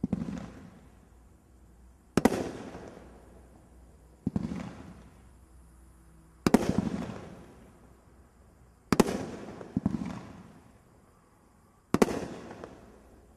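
A 9-shot 500 g consumer firework cake firing single aerial shots about every two seconds, seven in all, with two coming close together near the middle. Each shot is a sharp bang followed by a fading rumble.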